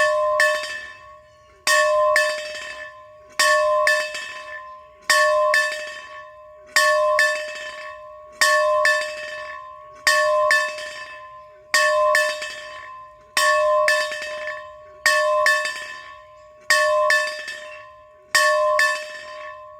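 A metal bell rung steadily, about a dozen strokes evenly spaced roughly every 1.7 seconds, each a double strike in quick succession. Every stroke rings out on the same note and fades before the next.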